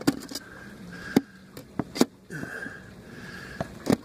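Hammer tapping a hardware-cloth (wire mesh) plug into a hole in a wall: five or six sharp, unevenly spaced taps.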